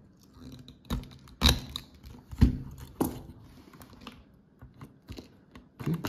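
A few sharp clicks and snips as a cutter trims the excess ends of Ethernet cable wires at a patch panel's punch-down block, with light rustling of the wires between them. The loudest snips come about a second and a half and two and a half seconds in.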